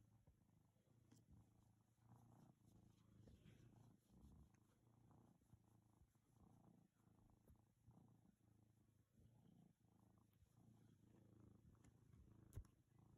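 Domestic cat purring, faint and low, swelling and fading in an even rhythm with each breath. A single sharp click near the end.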